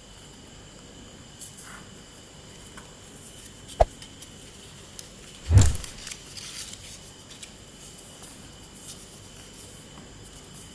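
A sheet of printer paper being folded and creased by hand into a paper airplane: soft rustling and crinkling, a sharp click about four seconds in, and a louder thump with a rustle of paper about a second and a half later, then more small crinkles as the folds are pressed flat.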